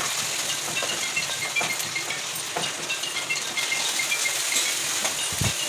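Chopped vegetables frying in oil in a pan with a steady sizzle, and a spatula clinking and scraping against the pan as they are stirred.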